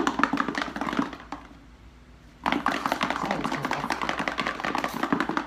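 Garlic cloves rattling inside a container that is shaken hard by hand to knock their skins loose: a fast, continuous rattle that stops for about a second near the middle, then starts again.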